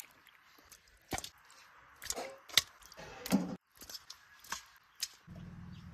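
Knife chopping on a wooden board: about six sharp, irregularly spaced chops.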